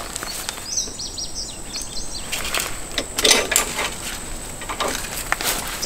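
Rustling and sharp clicks of rope and a metal carabiner being handled and clipped onto an ATV's trailer hitch. A bird chirps several times about a second in.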